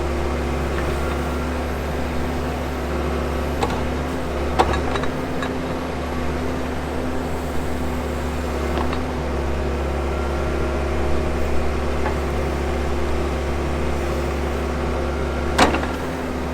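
Backhoe's diesel engine running at a steady speed while digging, with a few sharp metal clanks, the loudest near the end.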